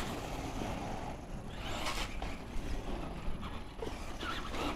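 Radio-controlled monster trucks driving across asphalt: motor and tyre noise, with a louder surge about two seconds in.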